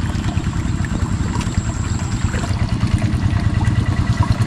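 A small engine running steadily with a low, rapid, even throb, over the trickle of flowing water.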